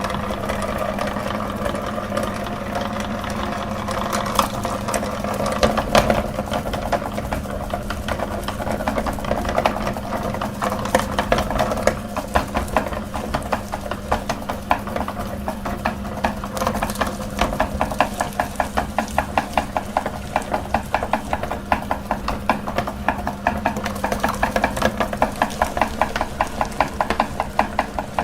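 Electric meat grinder running under load while grinding hard candy: a steady motor hum with a fast, even rattle of crunching clicks. The clicks become more pronounced in the second half, at about three a second.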